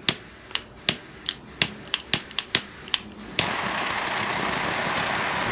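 Cohiba quad jet lighter's ignition clicking about a dozen times at an uneven quick pace, then catching about three and a half seconds in: the four butane jet flames hiss steadily.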